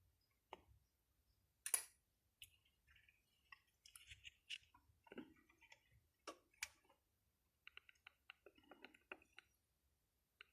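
Faint, scattered clicks and light taps of small hard objects being handled, with a quick run of small clicks about eight seconds in.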